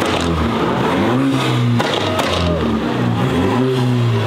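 A car engine revved hard, its pitch climbing and falling back about three times.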